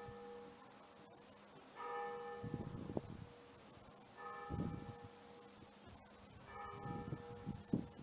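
A single church bell tolling slowly, one stroke about every two and a half seconds, each stroke ringing on and fading before the next. Low thuds come between the strokes.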